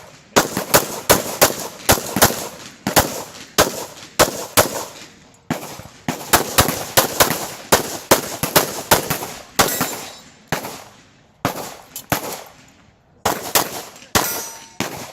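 Pistol fired in fast strings during a USPSA stage run: sharp shots in quick pairs and runs, each with a short ringing echo, broken by brief pauses.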